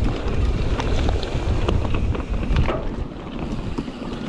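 Wind buffeting the microphone of a rider on an electric mountain bike, with a steady low rumble and frequent short clicks and rattles from the bike over rough trail.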